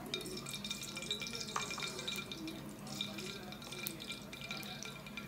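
Cooking oil crackling and spitting in a preheated aluminum pot, a dense run of tiny pops as the freshly added oil heats.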